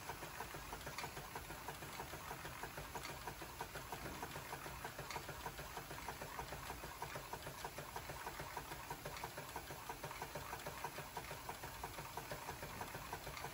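Jensen Model 75 toy live steam engine running fast under a good head of steam, a rapid, even mechanical clatter, along with the belt-driven toy workshop models it turns.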